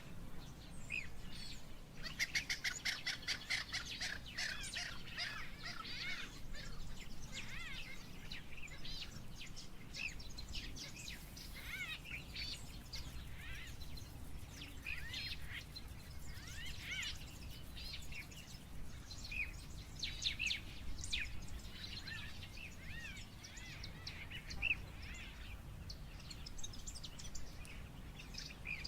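Several birds chirping and trilling in quick overlapping calls, busiest a few seconds in, over a low steady hum.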